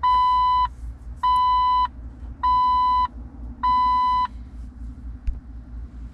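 Jeep Wrangler TJ's electronic warning chime: four beeps on one steady pitch, each about half a second long and a little over a second apart. A single click follows about five seconds in.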